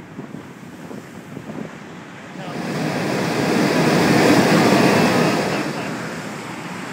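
Sea blowhole in a rock ledge blasting out air and spray: a rushing whoosh that swells about two and a half seconds in, peaks, and dies away over a few seconds, over the wash of surf and wind on the microphone.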